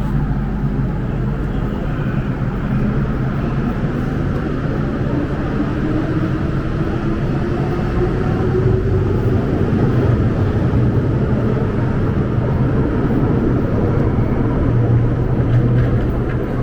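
MTR M-train pulling out of the platform: its traction motors give a whine that rises steadily in pitch as the train picks up speed, over a steady rumble of wheels on rail that grows a little louder.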